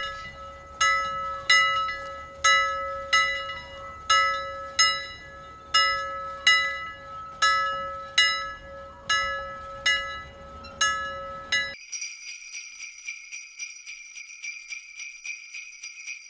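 Bell-like chime tones in an outro jingle, struck about three times every two seconds, each ringing out briefly. About three-quarters of the way through they give way to a fast, high tinkling shimmer.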